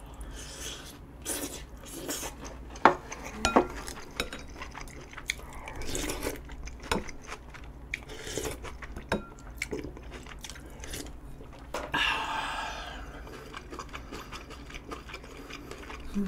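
Close-up eating sounds: chewing mouthfuls of army stew and rice, with a spoon clicking against a bowl many times and a few slurps of broth.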